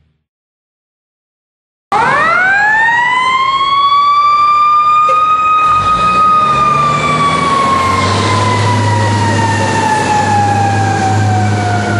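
Fire department ladder truck's siren starts abruptly about two seconds in, winds up quickly to a high pitch, then slowly falls in pitch. A low steady rumble joins about eight seconds in.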